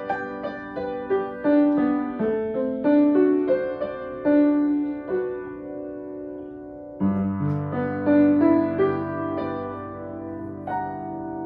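Piano played slowly, single notes struck one after another and left to ring, forming broken chords. About seven seconds in a deep bass chord comes in and sustains under the higher notes.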